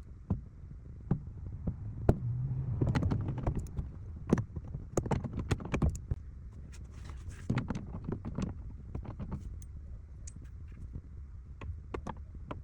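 Irregular clicks, taps and metallic rattles of hand tools and interior parts being worked on during car interior disassembly, busiest in the first half, over a steady low rumble.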